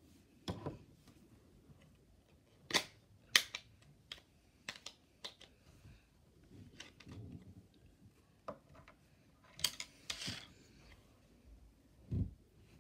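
Scattered taps and clicks of fingers and nails on a wooden tabletop and on a hard plastic toy. The two sharpest clicks come about three seconds in, two more come later, and a dull knock sounds near the end.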